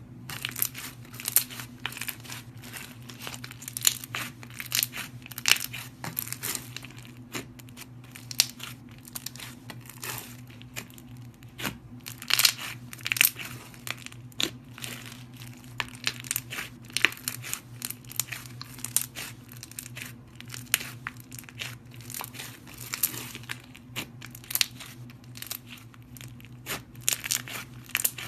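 Slime being squeezed, stretched and poked by hand, giving a close, dense stream of crackles, clicks and sharp pops that comes in uneven bursts.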